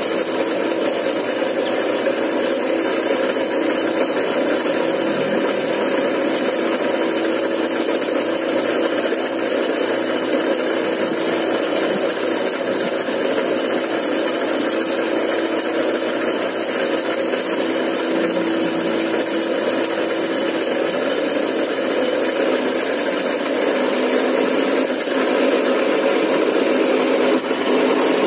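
A power tool running continuously with a steady whine, working on exhaust piping, getting a little louder near the end.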